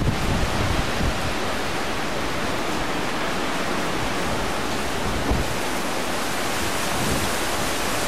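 Strong windstorm gusts rushing through pine trees, a steady, even hiss.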